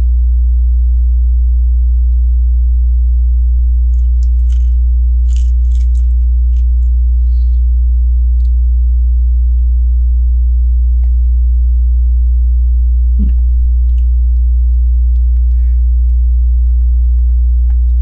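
Loud steady electrical mains hum with a few overtones, under faint clicks and rattles of plastic Lego pieces being handled, mostly around four to six seconds in.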